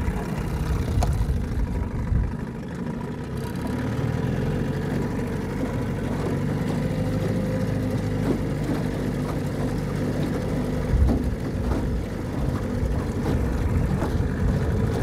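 1981 Johnson Seahorse 15 hp two-stroke outboard motor running in forward gear, pushing the boat along. It settles into a steady speed about four seconds in.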